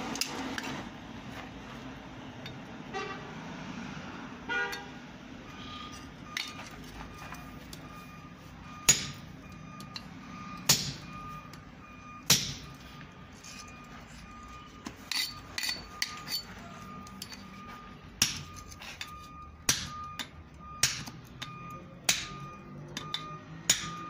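Hand hammer blows on a glowing steel axe blank held on a small anvil, the steel ringing after each strike. A few light knocks come first, then about a dozen hard, irregularly spaced blows from about nine seconds in.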